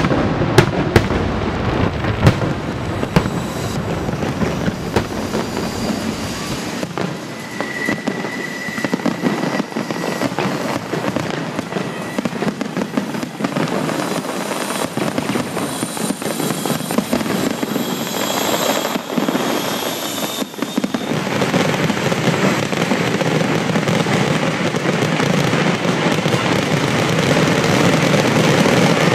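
Fireworks display: a dense, continuous barrage of bangs and crackling. A few sharp bangs come at the start, a whistling shell is heard about a quarter of the way in, and the barrage grows louder over the last third.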